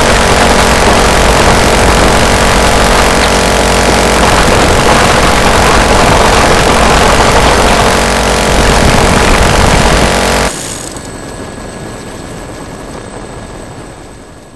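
Dillon M134D six-barrel 7.62 mm electric Gatling gun firing one unbroken ten-second burst, the shots running together into a continuous loud ripping sound. It stops abruptly about ten and a half seconds in, leaving a quieter steady helicopter engine and rotor noise that fades away near the end.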